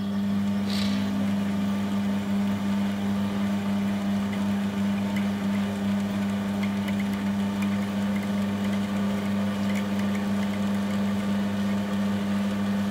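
Electric motor of a rod-wrapping machine running at a steady speed, turning the rod blank while red thread is wound onto it; an even, unchanging hum.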